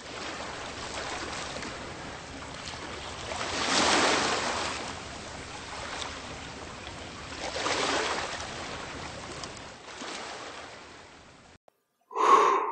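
Ocean surf washing up a sandy beach, a steady hiss that swells twice as waves come in, then cuts off. A brief, loud sound follows near the end.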